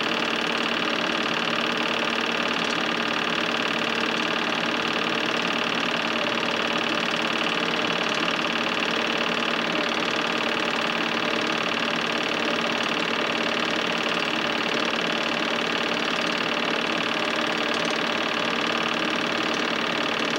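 Home-movie film projector running with a steady mechanical whir.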